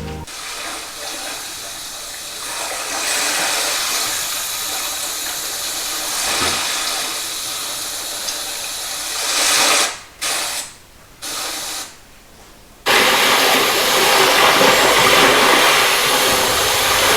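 Movie soundtrack of a steady hissing, rushing effect, first played through a TV's built-in speakers. It cuts out a few times around ten to thirteen seconds in, then returns louder and fuller, with more bass, through a Bose Soundbar 700.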